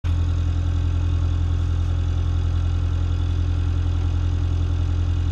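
Motorboat's engine running steadily as the boat cruises, a constant low drone that does not change in pitch or level.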